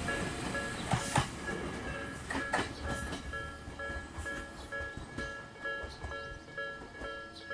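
Jōmō Electric Railway train passing over a level crossing, its wheels clacking over the rail joints several times in the first three seconds as the train noise fades away. Through it all the crossing's electronic warning bell, a Tōbu-type B (Nikkō type) alarm, keeps ringing in a steady repeating two-tone pattern.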